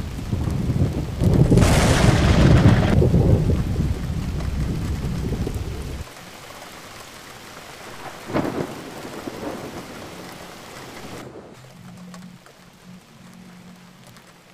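Thunderstorm: thunder rumbles loudly over steady rain and swells to its loudest about two seconds in, then cuts off abruptly about six seconds in. A shorter, sharp crack comes about eight seconds in, and the rain hiss carries on more faintly.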